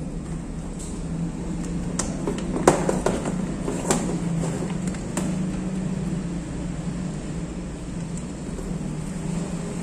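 Steady low mechanical hum, with a few light clicks and taps as the multimeter's test leads are handled; the sharpest tap comes a little under three seconds in.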